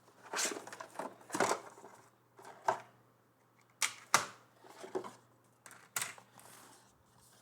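Scanner kit's packaging and accessories being handled during unboxing: irregular sharp clicks and short rustles, the loudest about four seconds in.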